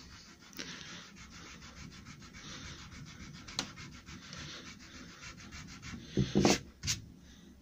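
A coarse rubber eraser scrubbing pencil marks off a planed beech board, in quick back-and-forth strokes. Near the end come two short louder sounds.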